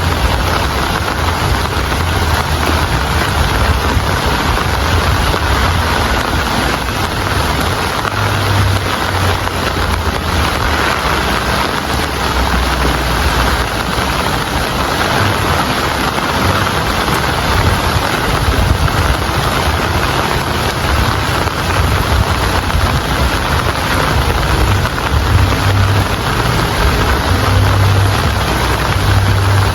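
Heavy rain falling steadily: a loud, even hiss with a low rumble underneath.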